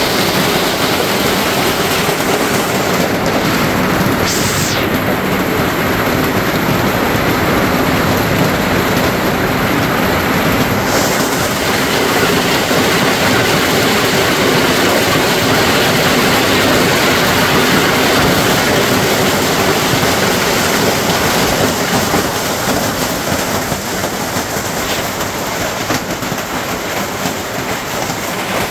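Heavy hailstorm: hailstones pelting down on the ground in a dense, steady roar of countless impacts, easing slightly near the end.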